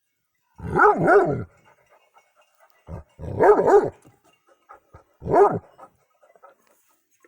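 Young Kangal shepherd dog barking in three loud bouts about two seconds apart, the first a quick double bark.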